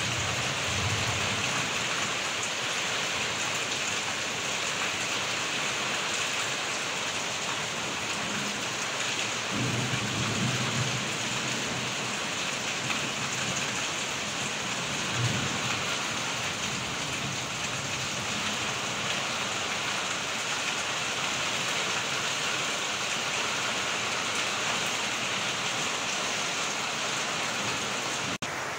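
Steady heavy rain drumming on a tin roof, a dense hiss. Low rumbles of thunder sound under it, the longest about ten seconds in.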